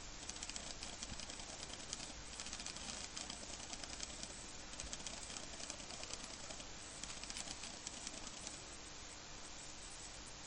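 A cockatiel nibbling and pecking, heard as a steady run of light, rapid clicks and rustles that ease off slightly near the end.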